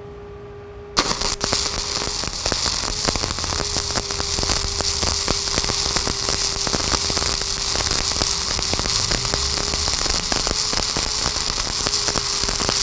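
Stick (SMAW) welding arc from a 1/8-inch 7018 rod at about 125 amps, running a hot pass: the arc strikes about a second in, then burns with a steady crackle of rapid pops.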